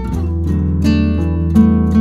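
Background music of plucked strings, like an acoustic guitar, picking out a melody over a held low bass note.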